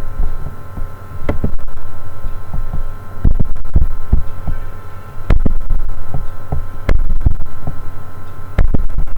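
Steady electrical hum with a low thud every one and a half to two seconds.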